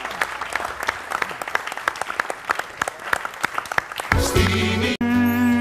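Audience clapping by hand for about four seconds. Then, after a sudden break, band music with steady held notes takes over.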